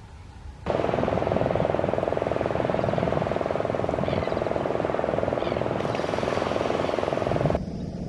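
Loud steady rushing noise of surf on a sandy beach, starting abruptly under a second in and stopping shortly before the end, with two faint high chirps in the middle.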